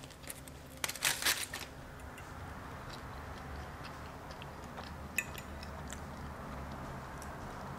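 Close-miked eating of fried fish: a burst of crisp crunching about a second in, then quieter chewing with scattered small clicks.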